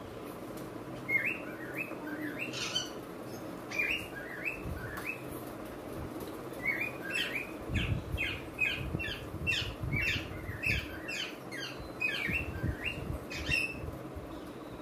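A bird chirping in series of short, quick chirps: a few scattered ones at first, then a rapid run of them, about two a second, over the second half.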